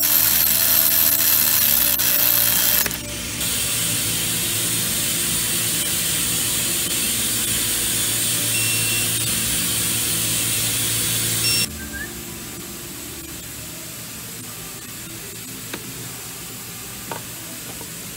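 Cordless electric ratchet running on an engine bolt, stopping suddenly about three seconds in. After that comes a steadier, quieter sound, with a few small clicks near the end.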